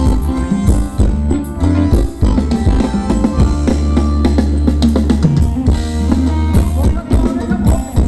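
Thai luk thung dance music from a live band, with a drum kit playing a steady beat over a heavy bass line.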